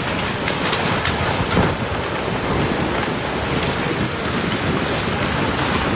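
Fast-flowing floodwater rushing: a loud, steady, even noise with no pitch to it.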